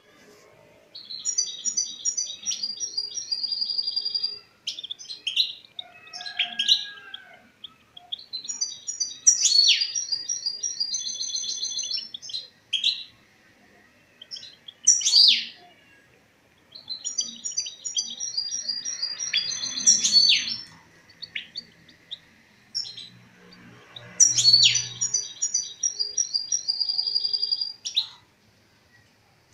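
European goldfinch singing in a cage: four phrases of rapid, high twittering song, each three to four seconds long, with single short calls between them.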